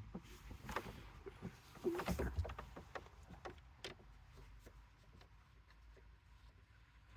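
Scattered light clicks and knocks of hands handling plastic console trim and screws while fitting a car's media unit, most of them in the first four seconds.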